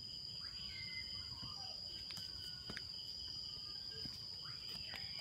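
Night insects trilling in a steady, high, unbroken tone, with a few faint short chirps and soft clicks over it.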